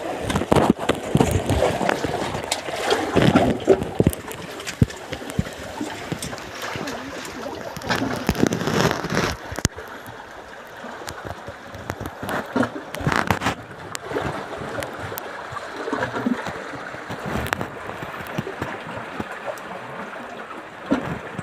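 Seawater sloshing and gurgling in a narrow rock crevice, with scattered sharp knocks and scrapes throughout.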